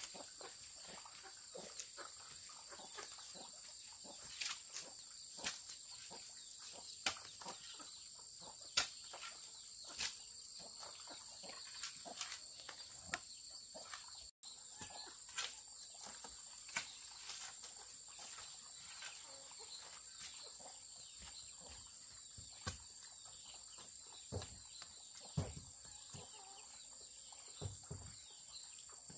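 Chickens clucking now and then over a steady high-pitched background drone, with scattered sharp clicks and knocks.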